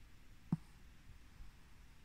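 Quiet background with one short, low thump about half a second in.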